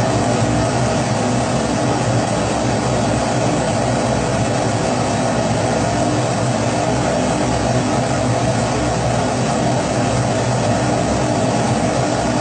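Kerosene pressure stove (primus-type burner) burning steadily, a constant rushing flame noise with a low hum underneath.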